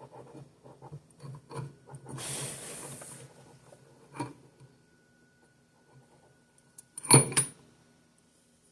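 Small metal clicks and a short scraping rub as the dog clutch and propeller shaft of a Mercury outboard are handled, then two sharp metal knocks about seven seconds in.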